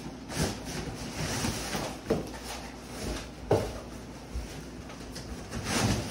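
Lid of a large cardboard sofa box being lifted and shifted by hand: cardboard rubbing and scraping, with a few dull knocks.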